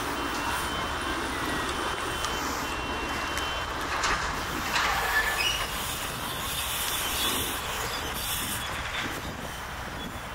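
BMX bikes rolling over a paved track: a steady rush of tyre noise, with a few short sharp clicks and a slight rise about four to five seconds in.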